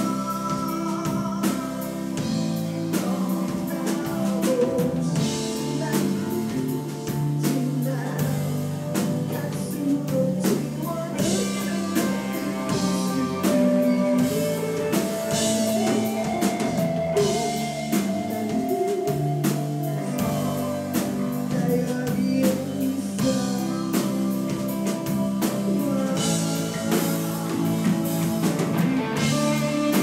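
Live band music: a male voice singing over strummed acoustic guitar and a drum kit.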